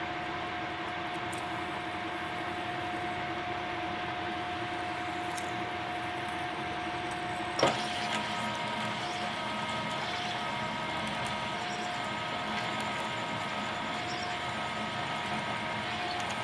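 Turret lathe running, with a steady hum and a constant whine, while a turret-mounted tool cuts through the bore of a drill-rod bushing. A sharp knock comes about halfway through, after which a higher, wavering whine joins in.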